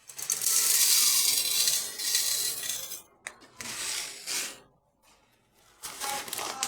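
Coarse salt grains rattling and clinking against a blender's jar in a long spell of about three seconds, then two shorter spells.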